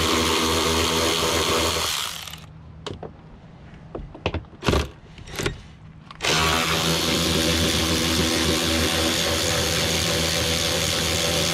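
Electric power driver fitted with an Allen bit running at a steady whine, backing out screws. It stops about 2 s in, gives way to a few light clicks and knocks, then runs again from about 6 s in.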